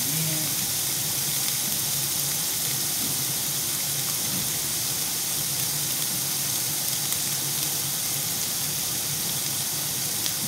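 Hamburger patties sizzling in a frying pan, a steady hiss.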